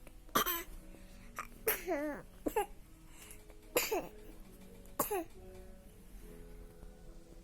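A person coughing about five times in a row, each cough a sharp burst, several trailing off in a short voiced sound that falls in pitch.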